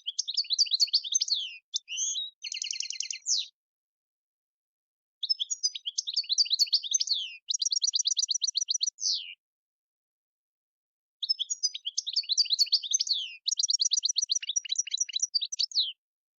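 European goldfinch singing. It gives three bouts of rapid, twittering song, each a few seconds long and ending in a fast trill, with silent gaps of about two seconds between them.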